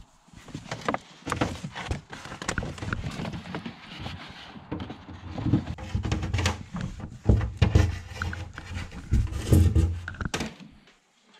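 Handling noise: irregular scrapes, knocks and fabric rustling as a wire is fed through the bus body, with heavy rubbing of a jacket sleeve against the microphone in the second half, fading out near the end.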